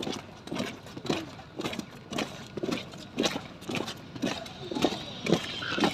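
Drill movements by a squad of cadets: a string of irregular short knocks and clacks, about two a second.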